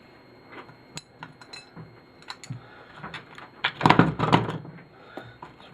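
Small metal and plastic television parts clinking and rattling as they are handled and pulled apart by hand, with scattered light clicks and a louder clatter about four seconds in.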